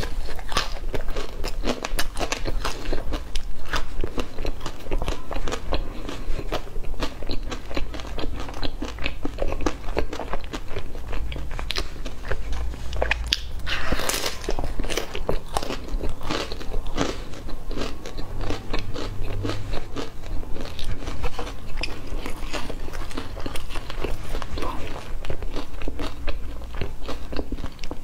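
Close-miked biting and chewing of a doughnut coated in colourful crunchy cereal: a dense, continuous run of crisp crunches and crackles as the coating breaks between the teeth.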